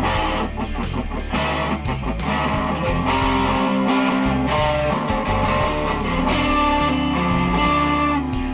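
Guitar-led music with a moving bass line and steady percussion, played without a break.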